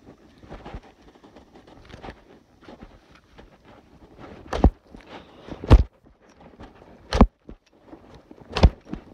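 Footsteps crunching through dry ground litter, with four heavy thuds about a second or so apart in the second half.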